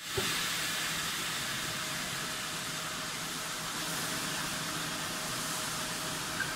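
Inner-tube inflation machine giving a steady hiss of air with a faint steady tone beneath it as its mould halves open.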